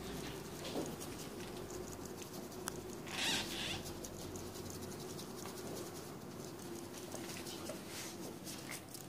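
Light, rapid tapping and scratching of paint being dabbed through a plastic stencil onto the wooden cabinet top, with a brief louder rustle about three seconds in.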